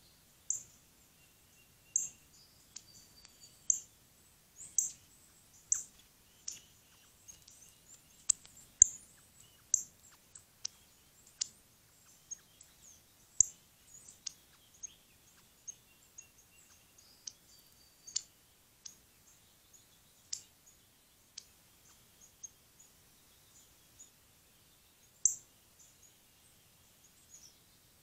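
A songbird giving short, sharp, high chip notes, spaced unevenly about once a second.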